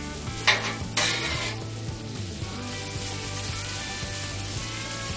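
Chopped bacon sizzling steadily on a hot steel flat-top griddle. A metal spatula scrapes loudly across the surface twice near the start as the pieces are spread out.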